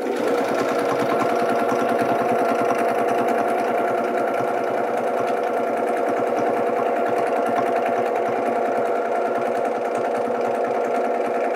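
Domestic sewing machine running steadily at speed, free-motion quilting through a quilt sandwich: a fast, even needle clatter over a steady motor hum.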